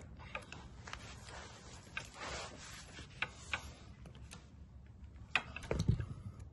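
Scattered light metallic clicks of a breaker bar and socket being worked against a tight motorcycle frame bolt, with one louder knock near the end.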